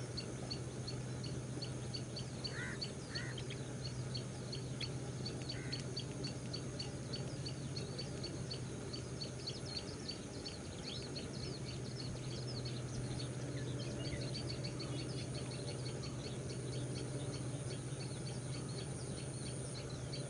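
Small birds chirping in a dense run of short, quick, high notes, with a few lower calls now and then, over a steady low hum.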